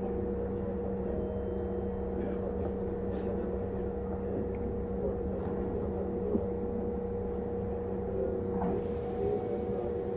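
Kintetsu electric train standing at a station platform: the steady hum of its onboard electrical equipment, with two steady tones over a low drone and a few faint clicks. A soft hiss joins near the end.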